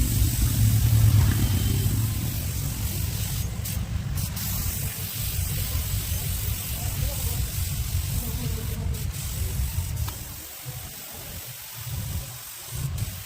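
Compressed-air paint spray gun hissing, with short breaks about three and a half, nine and thirteen seconds in. A low rumble runs underneath and drops away about ten seconds in.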